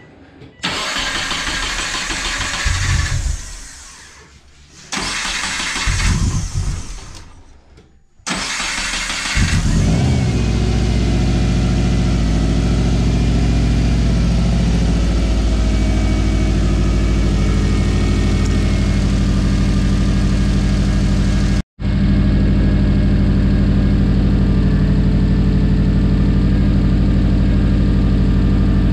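Turbocharged Subaru flat-four engine cranked twice without catching, then cranked a third time and firing up about ten seconds in, settling into a steady idle.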